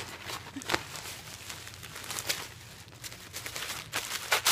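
Packaging crinkling and rustling in short, scattered bursts as items are rummaged out of a gift bag.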